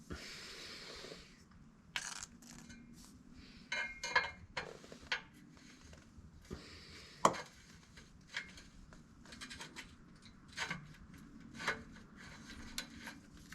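Handling noise of a wideband O2 sensor and tools: a brief rustle at the start, then scattered light metallic clicks and clinks, the loudest about seven seconds in.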